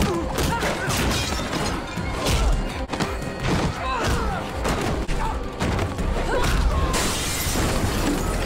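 Action-film fight soundtrack: a dramatic score under a rapid string of punches, thuds and crashes from a hand-to-hand brawl.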